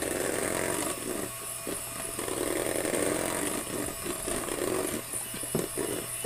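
Electric hand mixer running, its beaters whisking a chocolate mixture in a stainless steel bowl.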